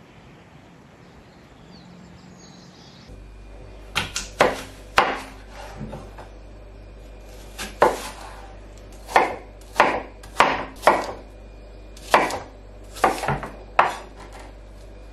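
Chef's knife cutting an apple on a wooden chopping board: about a dozen sharp, irregular knocks as the blade goes through the fruit and hits the board, starting about three seconds in.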